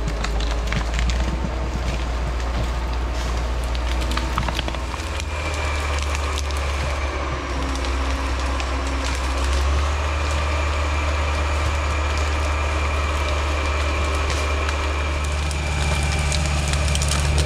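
A thick fir log dragged through forest brush by a skidder's winch cable, branches cracking and snapping continuously, over a steady low drone from the LKT 81 Turbo skidder's winch and diesel engine.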